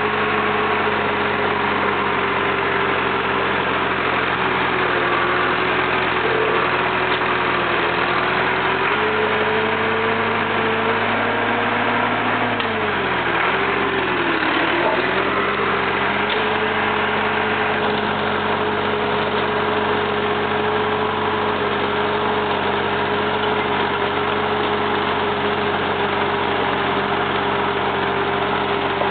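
Jacobsen mower's four-cylinder Perkins engine running steadily; about halfway through its pitch sags briefly, as if under load, then recovers.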